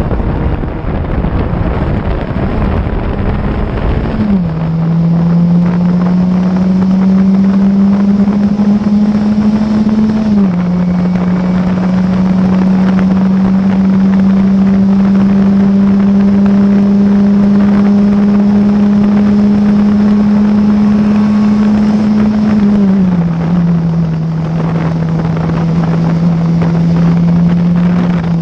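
Classic Formula Ford's four-cylinder 1600 cc Ford Kent engine running hard, heard from the cockpit. The engine note climbs slowly and drops sharply at upshifts about four and ten seconds in, then eases down in pitch around twenty-three seconds in. Heavy wind rumble on the microphone for the first four seconds.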